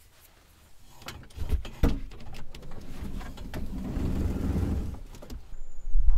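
Two sharp knocks about a second and a half in, then a steady rumbling rustle of movement and handling as a person climbs out through a minivan's open side doorway onto gravel.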